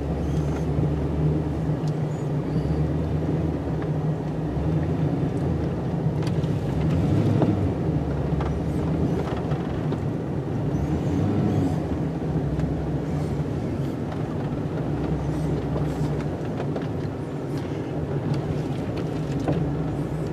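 Snow-plow vehicle's engine running steadily, a low hum that swells and eases every few seconds as the vehicle moves and pushes snow.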